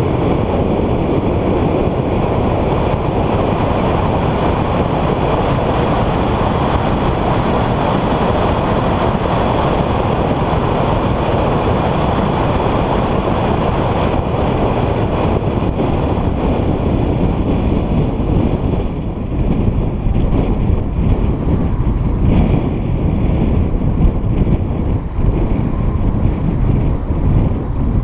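Car driving fast on a race circuit: a loud, steady mix of engine, tyre and wind noise heard onboard. It turns more uneven and gusty in the last third.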